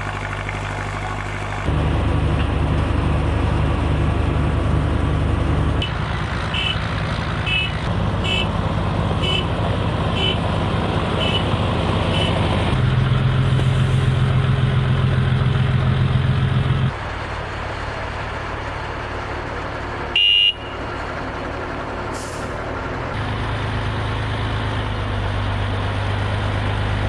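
Diesel engine of a heavy multi-axle missile launcher truck running, its steady low hum shifting in pitch and loudness at several points. A short high beep repeats about twice a second for several seconds in the middle, and there is one brief loud burst about twenty seconds in.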